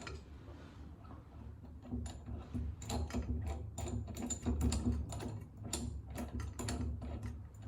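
Ratchet wrench clicking in irregular runs of quick clicks, starting about two seconds in, as a nut is turned on the threaded pushrod of an air brake chamber.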